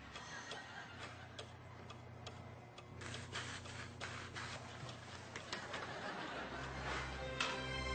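Steady ticking, about two ticks a second, with denser clicking from about three seconds in; low music comes in near the end.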